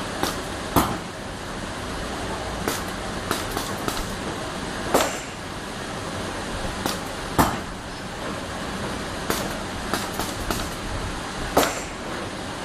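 Special-purpose industrial machine running: a steady mechanical hum with sharp knocks every second or two, some coming in quick runs of two or three.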